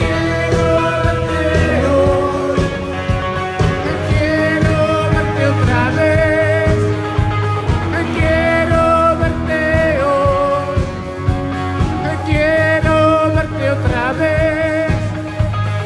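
Rock band playing live through the PA at a soundcheck: drums and bass under a held, wavering melody sung into the microphone.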